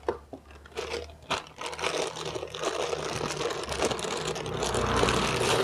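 Packaging of a pressure cooker being opened by hand: a few clicks and knocks, then from about two seconds in a continuous scraping, rustling sound that grows louder.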